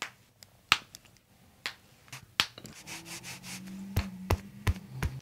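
Hands rubbing and pressing on skin and clothing close to the microphone, with a run of sharp clicks and taps, about seven in all. A low steady hum comes in about halfway through.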